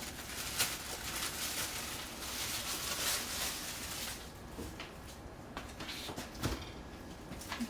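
Rustling with small clicks as slices of bread are handled and laid into a sandwich press, then quieter, with a couple of sharp knocks in the second half.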